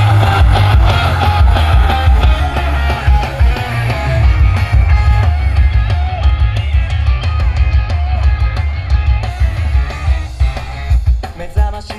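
Yosakoi dance music playing loudly over the stage loudspeakers: a dense, driving track with a heavy bass beat, thinning out briefly near the end.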